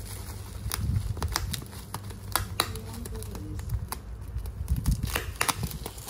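Plastic bubble wrap crinkling under a hand, with irregular sharp crackles.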